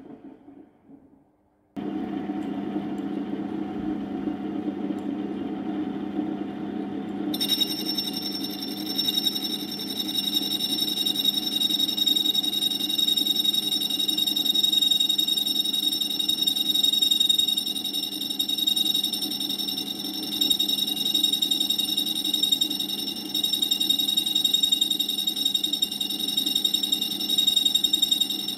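Homemade lathe-mounted tool and cutter grinder running with its cup grinding wheel, a steady machine hum that starts about two seconds in. From about a quarter of the way in, a steady high-pitched whine joins as the wheel grinds the cutting edge of a 6 mm end mill.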